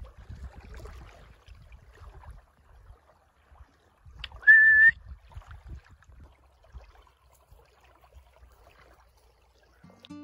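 A person's single short, loud whistle about halfway through, one steady note that rises slightly at the end. Low rumble of wind on the microphone underneath.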